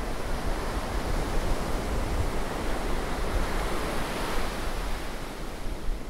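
Small waves breaking and washing up a sandy beach: a steady rush of surf that swells about four seconds in.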